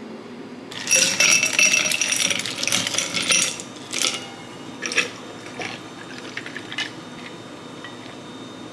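Small hard objects clattering and clinking together with a metallic or glassy ring for about three seconds, starting about a second in, followed by four or five separate clinks, over a steady background hum.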